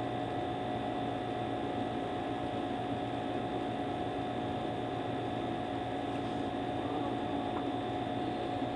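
Steady room hum and hiss with a few constant tones, like a fan or electrical hum, unchanging throughout.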